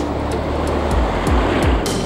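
Electronic dance music with a steady kick drum and hi-hats, over the hiss and wash of breaking surf.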